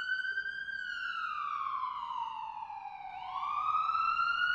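Ambulance siren wailing. It holds high, slides slowly down in pitch, then sweeps back up about three seconds in.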